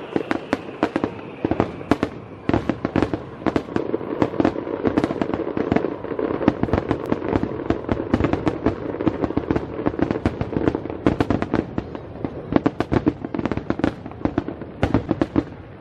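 Fireworks display: a dense, unbroken run of sharp pops and bangs, many each second, from crackling aerial shells.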